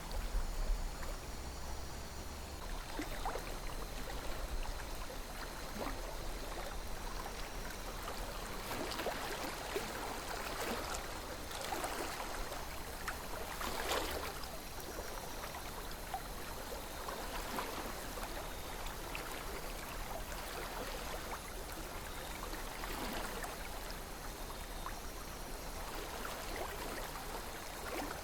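A calm river flowing: a steady rush of water with many small splashes and gurgles, a little louder around the middle.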